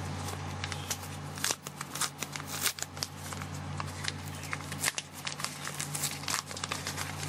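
Paper rustling and crinkling as a paper résumé is unfolded and handled, many small irregular crackles over a steady low hum.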